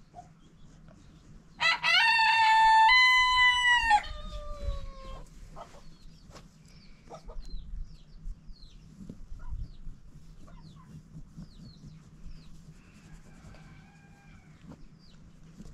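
Rooster crowing once, loudly, starting about two seconds in. The crow is held for about two seconds, with its pitch stepping up and then sliding down into a fading tail. A fainter, shorter call follows near the end.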